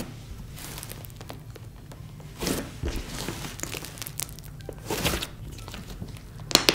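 Thick, dense slime being squeezed and kneaded by hand, squishing with three louder squishes about two seconds apart and a fine crackling sizzle between them.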